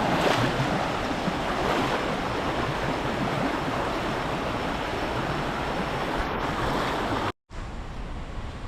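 Steady rushing of water from the Sungai Pisang river and waterfall. About seven seconds in it cuts off abruptly, and a quieter steady background noise follows.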